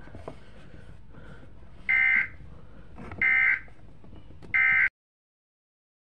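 Emergency Alert System end-of-message signal: three short bursts of shrill digital data tones about a second and a quarter apart, over a faint radio hiss, marking the end of the alert. The audio then cuts off abruptly.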